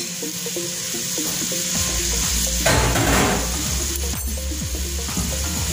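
Diced onions sizzling in hot oil in a stainless steel pot, a steady frying hiss with a few louder patches.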